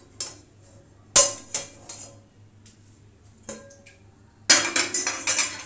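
Stainless steel cookware clanking as the steel pan used as a lid is lifted off the cake on the stove: one sharp metal clank about a second in, a few lighter knocks, then a longer stretch of clattering near the end.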